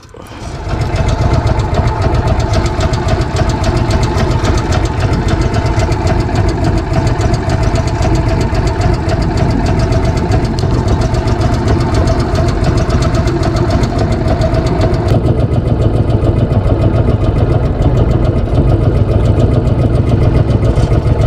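Boat's outboard motor running steadily. It comes up within the first second, and its sound changes a little about fifteen seconds in.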